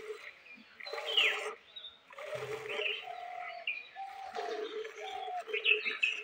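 Birds calling: doves repeating short, low cooing notes, and small birds chirping high, quick down-slurred calls over them.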